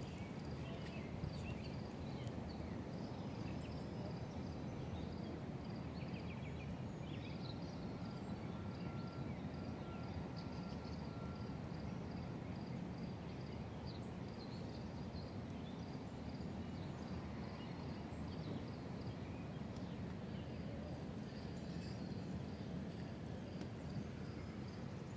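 Outdoor background noise: a steady low rumble with faint, short high chirps repeating about twice a second.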